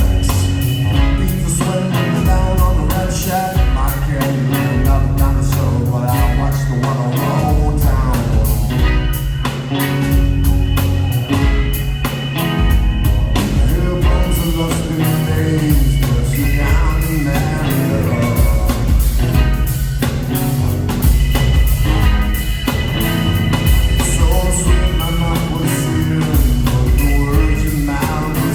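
Live rock band playing a song at full volume, with a driving drum kit and a heavy bass line.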